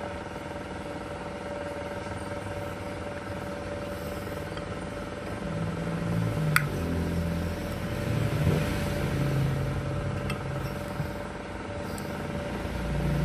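Steady mechanical hum under a low, uneven rumble that grows louder about halfway through, with one sharp metallic click and a couple of fainter ticks.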